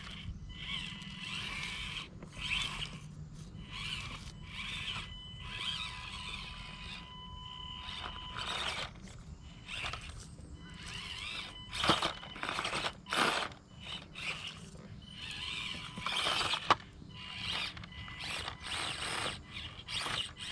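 Axial SCX24 1/24-scale RC crawler's small electric motor and gear drivetrain whining in spurts as it crawls up a rock, with the tyres scraping and crunching over rock and dry leaves and a few louder knocks in the second half.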